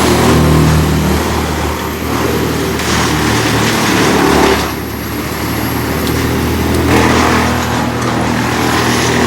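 Heavy diesel engines of a tree-removal crew's wood chipper and crane running steadily, with a harsher rushing, grinding noise that swells and eases several times as the chipper takes in the tree.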